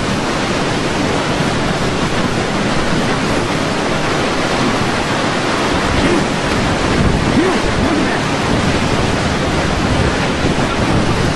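Hurricane-force wind and heavy surf in a loud, steady roar, with wind buffeting the microphone.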